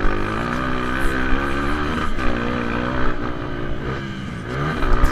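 Honda XR250 Tornado motorcycle's single-cylinder four-stroke engine heard from on board while racing on a dirt track, its pitch rising and falling as the throttle is worked. It eases off briefly about four seconds in, then picks up again near the end.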